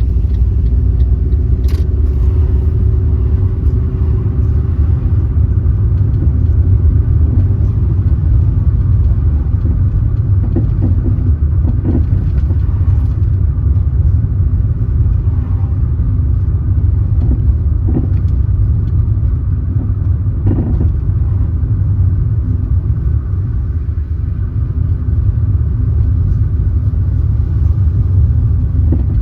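Car driving along the road: a steady low rumble of engine and tyres, with a sharp click about two seconds in and a few soft knocks later.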